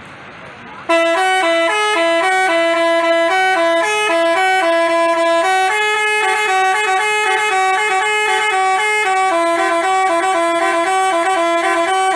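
Telolet basuri musical horn playing a melody of short and held notes, stepping up and down in pitch. It cuts in about a second in over faint background noise.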